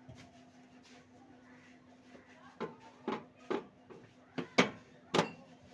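Sharp knocks and clanks of tools and metal parts being handled during repair work. They start about halfway through, come irregularly about twice a second, and the loudest fall near the end, over a faint steady hum.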